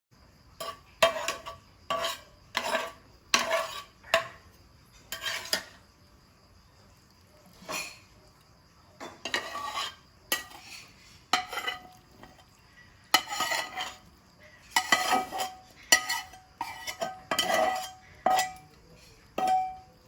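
Metal utensil clinking and scraping against metal cookware in irregular strokes, some clinks ringing briefly, with a couple of short pauses between bursts.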